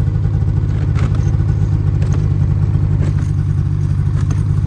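Snowmobile engine idling steadily with a fast, even pulse.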